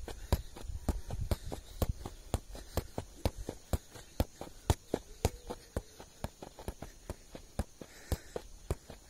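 A worn football kicked up again and again by the feet in keepy-uppy juggling: a steady run of dull taps, about two a second.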